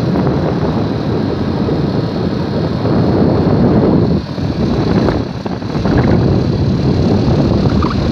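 Boat engine running steadily while the boat is underway, mixed with wind noise on the microphone; the level dips briefly twice near the middle.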